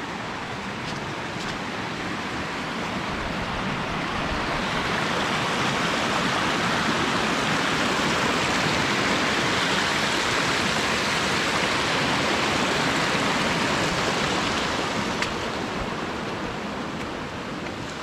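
Small forest creek rushing and splashing over rocks, a steady wash of water that grows louder as the trail reaches it, is loudest mid-way, and eases off near the end as it is left behind.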